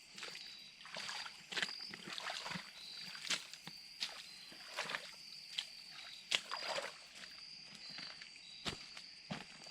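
A steady, high-pitched insect trill, with irregular clicks and soft sloshes of someone moving through shallow creek water and debris.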